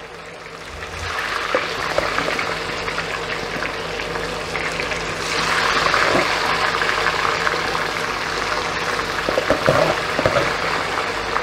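Raw potato sticks deep-frying in hot oil in a kazan: a steady sizzle that swells about a second in and again, louder, from about five seconds in as more strips go into the oil.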